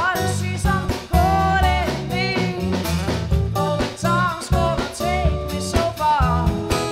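Acoustic band playing live: strummed acoustic guitar keeping an even rhythm, with a singer's voice carrying the melody over it.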